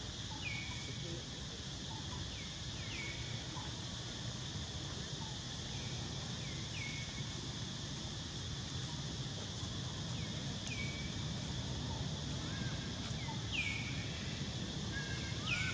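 Outdoor ambience: a steady high insect drone, with short falling chirps repeating every one to three seconds.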